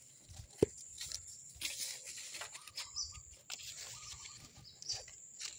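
Faint rustling and tapping with one sharp click about half a second in, a few short high bird chirps, and a steady high-pitched whine.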